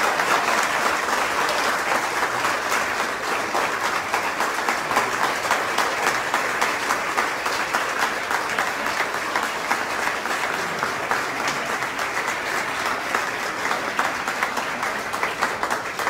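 A roomful of people applauding, a dense, sustained clapping of many hands that eases off slightly near the end.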